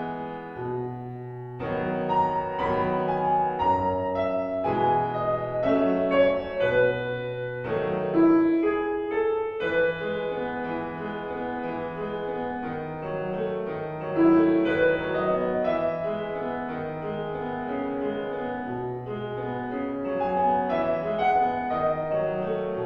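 Solo piano playing a classical-style sonatina in E major, a continuous flow of separate notes over a moving bass line.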